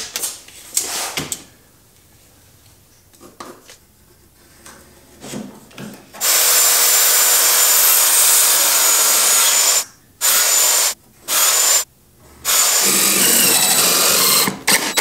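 A circular saw cutting through a pine 2x4 for several seconds, its blade giving a steady high whine over the cutting noise, after a few quiet knocks and handling sounds. Near the end it gives way to short bursts and then a cordless drill driving screws into the wood.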